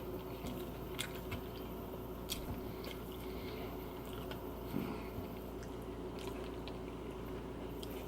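A man chewing a mouthful of burger, close to the microphone, with scattered soft wet mouth clicks.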